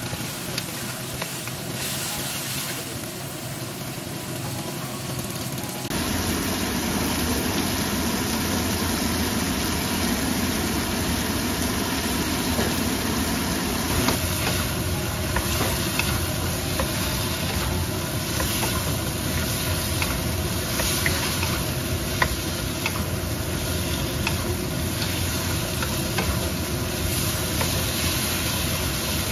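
Cucumber slices and fish cake sizzling in a hot wok while a wooden spatula stirs and turns them, with frequent light ticks and scrapes of the spatula against the pan. The sizzle gets louder and fuller about six seconds in.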